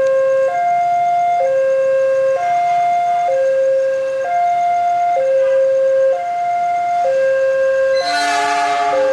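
Railway level-crossing warning alarm sounding, an electronic two-tone signal alternating steadily between a low and a higher tone about once a second, meaning a train is approaching. About eight seconds in, a train's horn sounds briefly over it.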